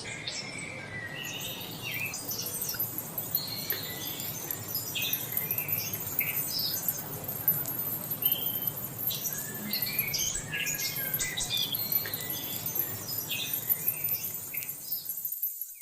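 Several songbirds chirping and calling in short, overlapping notes over a steady background hiss. The sound cuts out for a moment near the end, then a bird call resumes.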